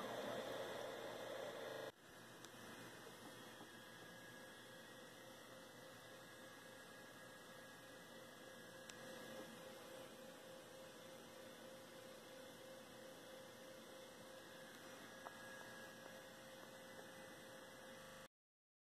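Near silence: a faint steady electrical hum over low hiss. It drops quieter about two seconds in and cuts to dead silence just before the end.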